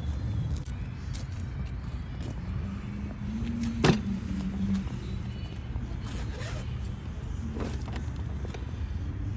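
Steady low vehicle engine rumble, with a sharp click about four seconds in and a few fainter scrapes, as a cardboard parts box is handled and opened.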